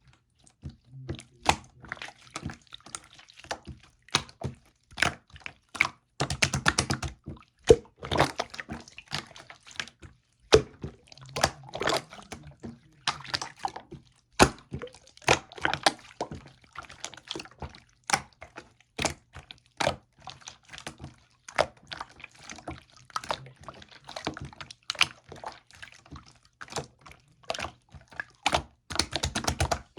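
Soft, runny blue slime being squished and stretched by hand, giving rapid irregular wet clicks and small pops of trapped air, with bursts of denser crackling about six seconds in and near the end.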